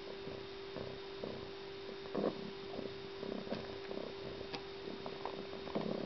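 A steady electrical hum with irregular soft taps and knocks from typing on a phone's keys and handling it, with a few sharper clicks.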